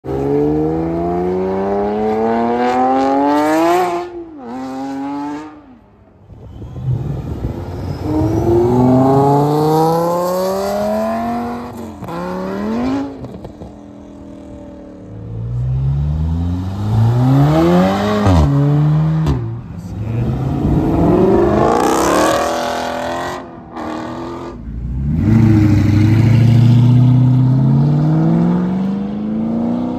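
Sports cars accelerating hard away one after another, about five runs in all. Each engine climbs in pitch through the revs and breaks at quick upshifts. A Porsche Cayman pulls away at the start and an Audi R8 near the end.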